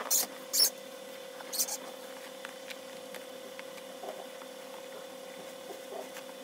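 A few short rustling, scraping handling noises in the first two seconds as the ink bottle is put aside and a tissue box picked up, then only faint handling sounds. A steady faint hum runs underneath.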